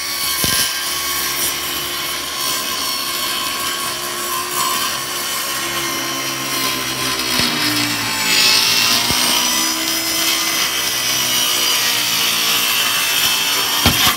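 DeWalt DCS393 20V MAX cordless circular saw ripping a long cut through a plywood sheet. The motor whine and blade hiss run steadily, the pitch sags a little under load partway through, and the saw cuts off at the very end.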